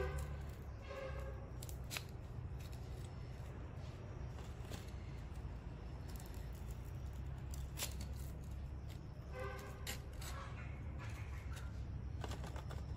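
Soft clicks and rustles of food slices being pushed onto a bamboo skewer by hand, with a few sharp clicks, over a steady low hum.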